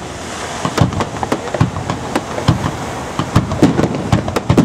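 Aerial fireworks barrage (starmine) going off: a rapid, irregular run of sharp bangs and crackles, with deeper booms about once a second.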